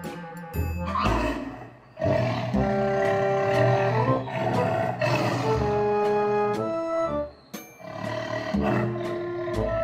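A tiger roaring over light background music made of held notes.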